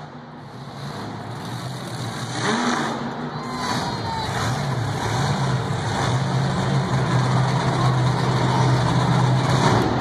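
Monster truck engine running and getting steadily louder as the truck approaches, with a brief rise and fall in revs about four seconds in.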